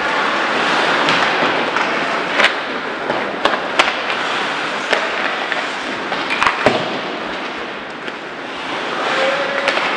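Ice hockey play: a steady hiss of skate blades on the ice, broken by a string of sharp clacks of sticks and puck, several close together in the middle.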